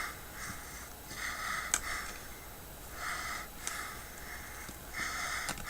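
Heavy breathing through the nose, a hissy breath about every two seconds, with a few sharp clicks from hand tools.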